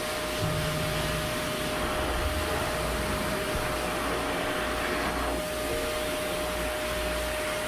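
Pet-grooming hose dryer blowing air onto a short-haired cat's coat: a steady rushing of air with a constant whine.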